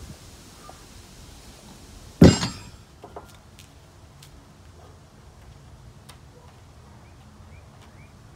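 A loud metallic clank with a short ring about two seconds in as plate-loaded dumbbells are put down, followed by a softer knock about a second later. Faint bird chirps near the end.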